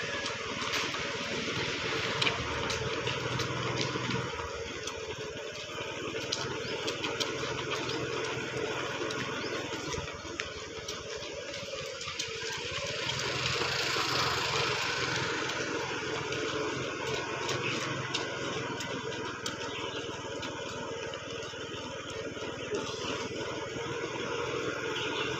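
Steady running of a slow-moving motor vehicle's engine with a low hum, mixed with wind noise and many small irregular taps such as running footsteps on the road.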